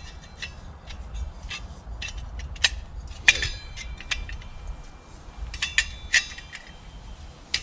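Metal twig stove parts and a metal pot clinking, tapping and scraping against each other as the nested stove is taken out of the pot. The clinks are scattered and uneven, several with a short metallic ring, and come more thickly about a third of the way in and again about three-quarters in.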